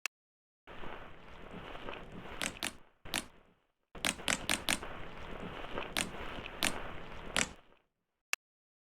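Slime being squeezed and worked by hand, crackling in two long stretches with sharp clicking pops scattered through, broken by a short pause about three and a half seconds in.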